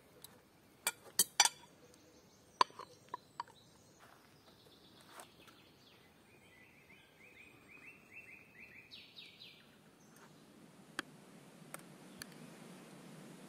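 A metal ladle clinks against the stew pot and plates several times in the first few seconds. Later, a bird sings a quick run of short high chirps, about four a second, for roughly three seconds.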